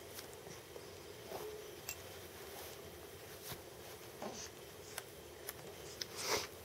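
Quiet room with scattered faint clicks and a few soft, brief baby sounds, including a short gliding coo about four seconds in and a breathy hiss near the end.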